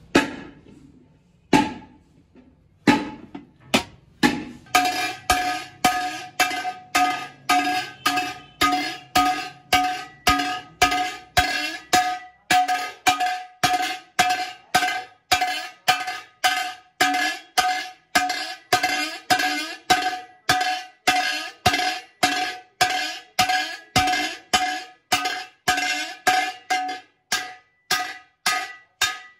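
Hammer blows on a thin aluminium pot wall held over an iron stake, each strike ringing with a clear metallic tone. A few spaced blows open it, then about five seconds in a steady beat of about two strikes a second begins.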